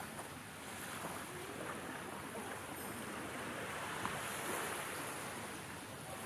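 Gentle surf washing onto a beach: a steady, even wash of noise, with one small tick about four seconds in.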